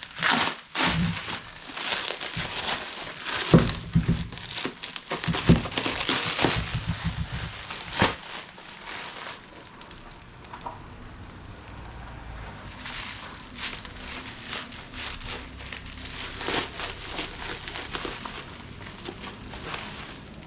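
Plastic packaging crinkling and tearing as a shipped replacement part is unwrapped, with a few sharp knocks in the first half.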